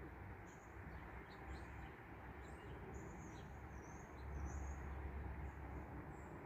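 Small birds chirping with many short, high-pitched calls, over a low rumble of wind that swells for a second or so past the middle.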